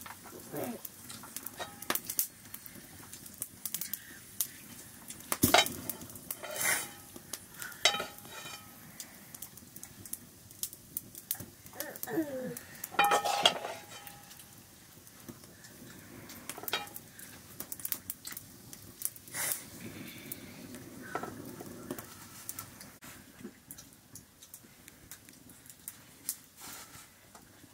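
Scattered clinks and scrapes of steel dinner plates and a metal ladle against a wok during a meal, with the loudest clang, briefly ringing, about thirteen seconds in.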